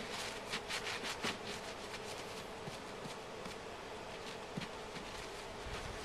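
Gloved hand digging into dry snow: a quick run of crisp crunches in the first second or so, then a few scattered scrapes over a steady hiss.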